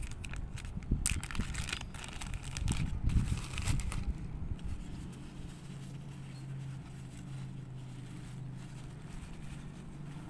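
A plastic zip bag being pulled open and white wrapping paper unwrapped by hand, crinkling and rustling, busiest in the first four seconds. A low steady hum carries on under it in the second half.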